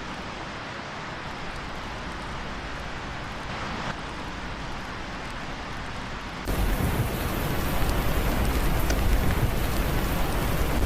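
Heavy rain hissing steadily, then about six and a half seconds in the sound cuts abruptly to louder, fuller rain noise with a deep rumble underneath.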